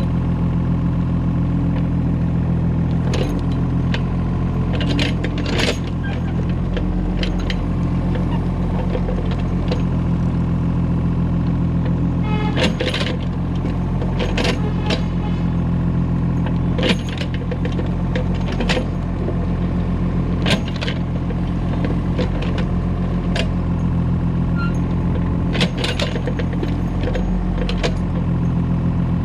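Excavator engine running steadily under load, with scattered sharp metallic clanks and knocks, some in quick pairs.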